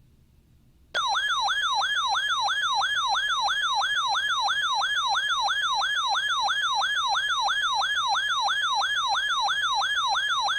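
Electronic siren-style alert tone: a loud yelp of rapid falling sweeps, about three a second, starting about a second in and running steadily. It is an alert sounding just before a new severe thunderstorm warning is broadcast.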